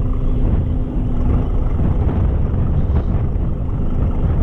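Strong wind buffeting the microphone: a steady low rumble. A faint hum comes and goes underneath it.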